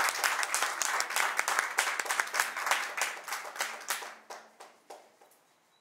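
Audience clapping, the claps thinning out and dying away about five seconds in.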